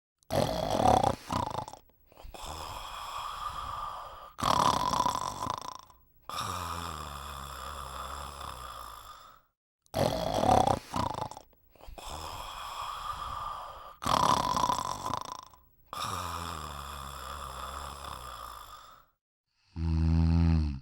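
A cat snoring in a steady repeating cycle. Each breath is a short, loud rasp followed by a longer, quieter buzzing snore, four times over. Near the end comes a brief, deeper, louder buzz.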